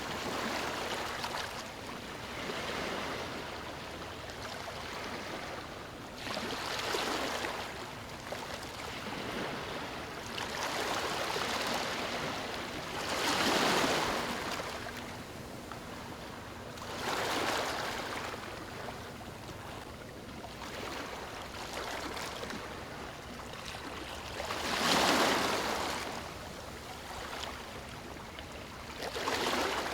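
Sea waves breaking and washing up on a beach, the noise of each surge rising and falling away every few seconds. The largest breakers come about halfway through and again near the end.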